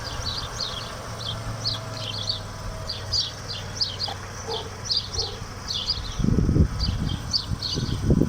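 Small birds chirping outdoors, many short high chirps a second, with a faint low hum early on and a couple of low rumbles near the end.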